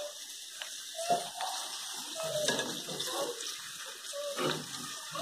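Puris deep-frying in hot oil: a steady sizzle, with a few clicks of a wire skimmer touching the pan as it turns them.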